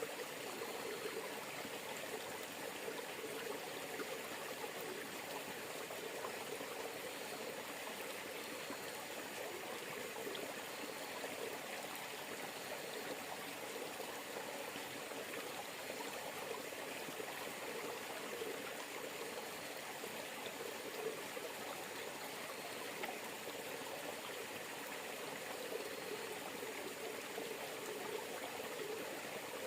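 River water flowing, a steady continuous rush.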